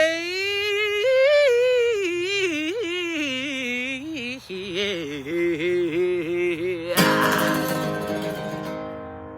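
Wordless vocal runs, sliding and wavering in pitch over soft acoustic guitar. About seven seconds in, a final strummed guitar chord rings out and fades.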